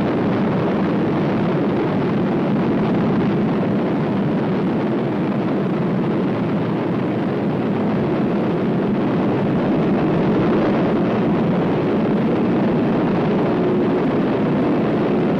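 Steady, rumbling roar of the 3.5-megaton Zuni thermonuclear surface burst on the original test-film soundtrack, with no sharp blast crack; faint steady tones come in near the end.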